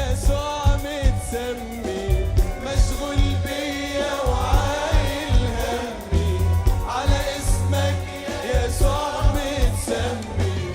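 Christian worship song: singing voices over a band with a steady drum beat.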